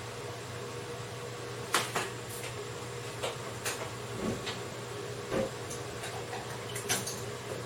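A few irregular knocks and clicks of kitchen things being handled and set down, over a steady low hum.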